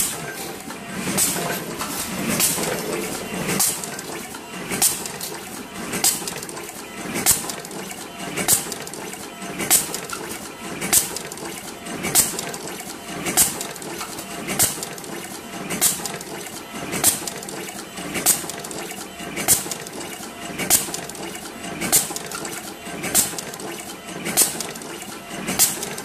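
Automatic ribbon wire cutting, stripping and crimping machine running in continuous cycles: its crimp press strikes with a sharp clack about every 1.2 seconds, some strokes doubled, over the machine's steady running noise.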